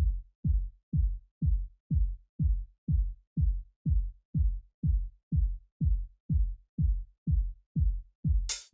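Techno track opening on a lone drum-machine kick drum, a low thump falling in pitch, struck steadily about twice a second. Crisp hi-hat and clap hits come in near the end.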